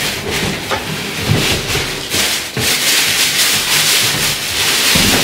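Packaging rustling and crinkling as a pair of boots is unwrapped from a shoe box. The rustle grows louder in the second half.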